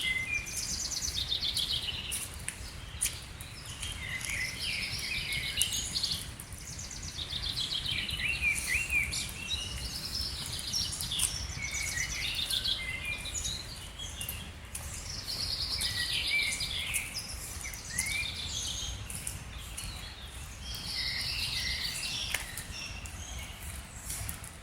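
A songbird singing, repeating a short phrase of quick notes every few seconds, over a steady low rushing noise from the flood-swollen river.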